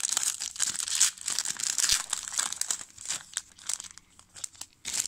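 Wrapper of a trading-card pack being torn open and crumpled by hand: dense crinkling and tearing for about three seconds, thinning to scattered crackles.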